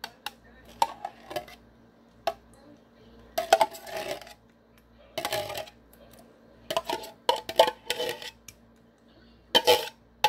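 Large metal spoon clinking and scraping against a tin can while scooping out cherry pie filling, in several short bursts of clatter.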